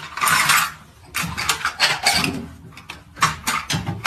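Rattling and scraping of dishes and utensils in a dish rack as a cat scrambles over them, in three bursts of clatter.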